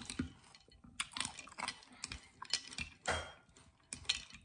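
A metal spoon clinking and scraping against a ceramic bowl as it stirs and scoops crushed ice, water chestnuts and palm seeds in syrup, with close-up slurping and chewing between the clinks.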